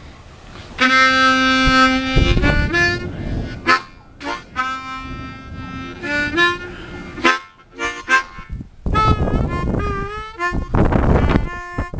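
B-flat harmonica played by ear: held notes and chords in short phrases with brief gaps, several notes bending in pitch near the end.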